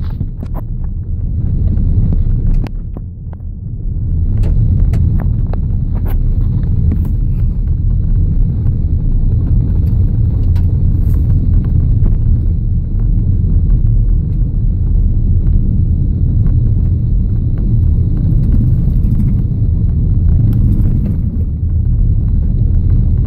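Car driving on a gravel road, heard from inside the cabin: a steady low rumble of tyres on gravel and the running engine, easing off briefly about three seconds in.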